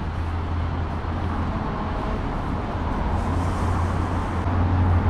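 Road traffic on a wet city street: cars passing with a steady low rumble and tyre hiss, growing a little louder near the end.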